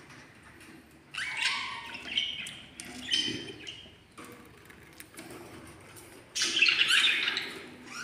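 Budgerigar nestling calling: three short calls in the first half, then a longer, louder call about six seconds in.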